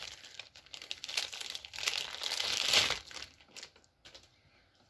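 A thin clear plastic bag crinkling as it is pulled open and off a doll. The crinkling is loudest about two seconds in and dies down to a few faint crackles after about three seconds.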